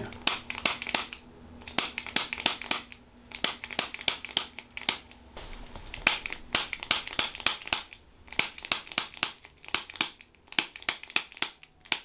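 Handheld chiropractic adjusting instrument firing against the neck and upper spine: sharp mechanical clicks in quick runs of several, with short pauses between the runs.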